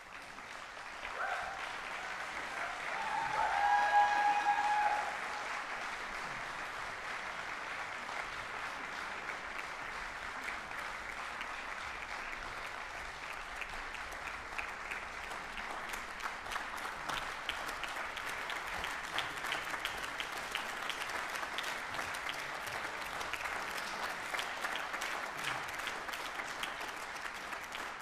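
Concert-hall audience applauding as a fanfare band's performance ends: the clapping swells out of silence within the first two seconds and then runs on steadily. About four seconds in, a brief loud shout rises above it.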